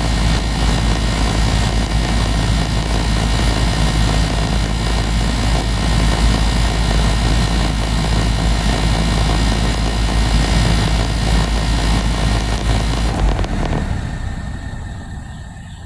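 A 2.5-ton Goodman gas pack air conditioner running in cooling mode, its compressor humming under the condenser fan's steady rush of air. About 13 seconds in the compressor cuts off and the sound drops and fades as the unit shuts down.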